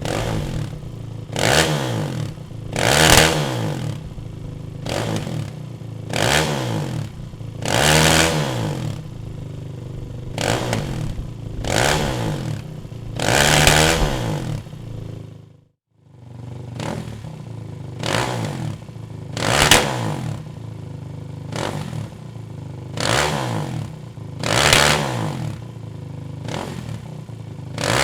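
Kawasaki KFX 450 quad's single-cylinder four-stroke engine running through an aftermarket Dominator exhaust. It idles and is blipped up in short, sharp revs again and again, about a dozen times. The sound cuts out briefly about halfway through, then the idling and revving resume.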